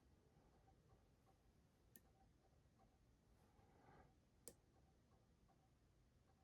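Faint clicks of a lock pick and tension tool working the pins of a Kwikset SmartKey padlock cylinder during single-pin picking: two short sharp clicks about two and a half seconds apart over near silence.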